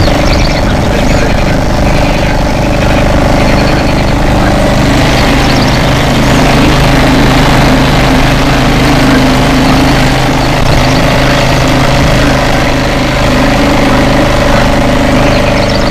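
An engine running steadily at an even speed, its pitch holding level throughout.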